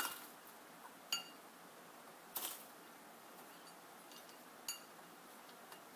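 Sun conure bathing in a ceramic water bowl: a few faint clinks against the bowl, two of them ringing briefly, and a short splash about halfway through.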